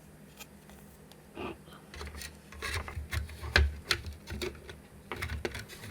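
Plastic parts being handled: a circuit board tried in a 3D-printed case, giving irregular clicks, knocks and rubbing that start with a single click and grow busier after about two seconds.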